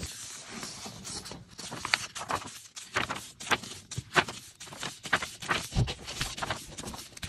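Pages of a thick softcover paper planner being leafed through by hand: a run of quick papery flaps and rustles, one after another.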